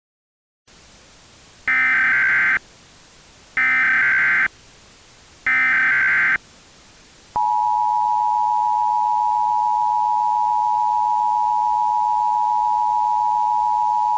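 Emergency Alert System tones: three short SAME header data bursts, each under a second and about two seconds apart, then the steady two-tone EAS attention signal starting about seven seconds in. Together they mark the start of an emergency alert broadcast.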